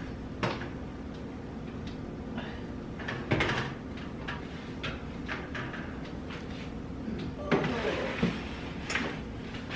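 An oven door is opened and a metal baking sheet of roasted chicken wings is pulled out and set on the glass-top stove. There are clicks, knocks and metal clatter, loudest about three seconds in and again near the end, over a steady low hum.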